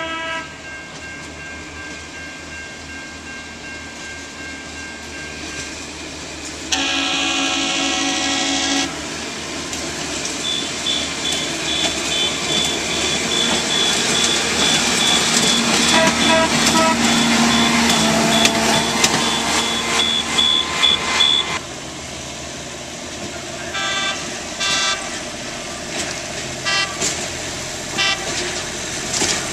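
Railroad maintenance-of-way track machines rolling past on the rails, sounding their horns: a long blast about seven seconds in and a series of short toots near the end. In between, a passing machine's engine and running gear grow loud, with a high-pitched steady tone over them.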